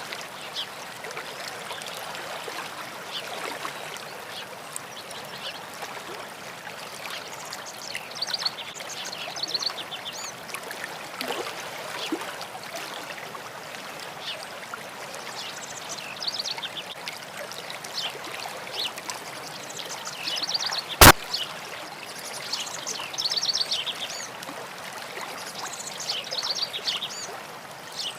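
Stream water flowing and trickling steadily, with short high chirping trills coming and going over it. One sharp click about three-quarters of the way through.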